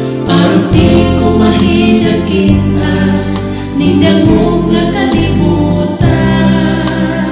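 A man and a woman singing a Cebuano gospel ballad as a duet over instrumental backing with sustained bass notes.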